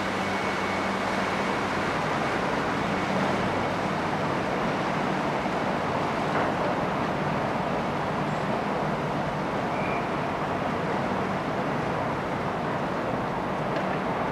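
Small motorboat running as it heads away up the river, its low engine hum fading over the first few seconds, over a steady rushing noise of city traffic and a train passing on the viaduct behind.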